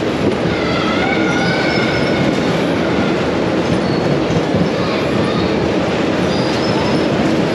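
Snow Jets funfair ride running at speed: a steady loud rumble of the ride's cars on their track, with a wavering high squeal that rises and falls.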